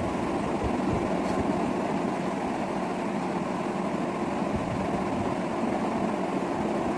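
A steady low mechanical drone.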